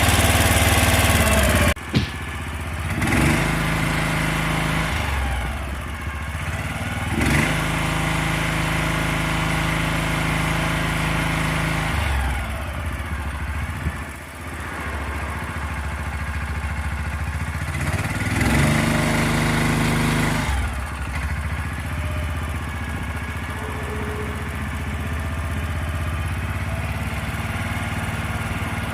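The engine of a small cart crane running, its note dropping suddenly about two seconds in and then changing pitch several times as the crane is worked.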